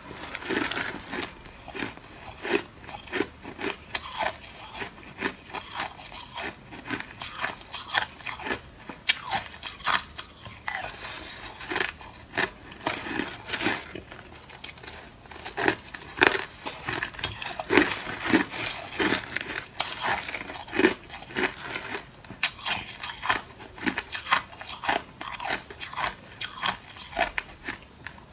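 Close-up chewing of clear, hard crushed ice: a steady run of irregular sharp crunches, several a second, as the ice breaks between the teeth.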